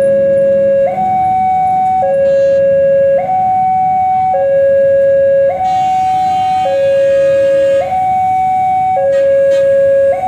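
Railway level-crossing warning alarm sounding: an electronic two-tone signal that alternates steadily between a lower and a higher tone, each held for about a second.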